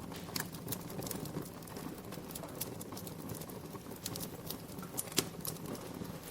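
Wood fire crackling in a fireplace: irregular sharp pops and snaps over a low steady hiss of burning, with one louder pop about five seconds in.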